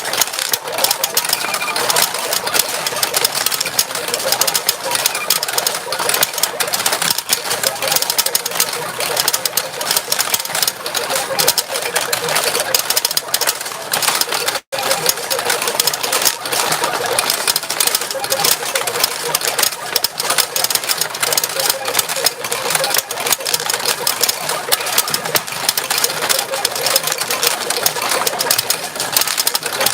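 Retro pachinko machine in play: a dense, continuous clatter of steel balls being fired and rattling down through the pins. The sound cuts out for an instant about halfway.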